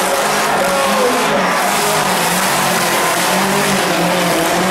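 Small car engine revving hard under load over rough dirt, its pitch repeatedly rising and falling, over a steady hiss of noise.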